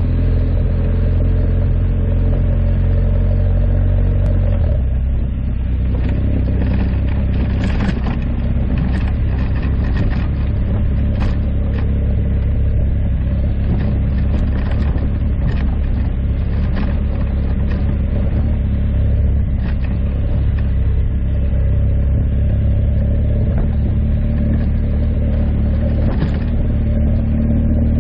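Motorcycle engine running steadily on the move over a dirt track, with scattered knocks from the rough ground; the engine note shifts once about five seconds in.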